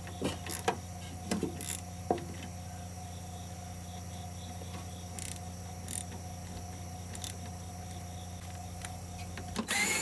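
A hand ratchet clicks a few times on a bolt. Near the end a cordless drill starts up and runs with a loud, steady whirr.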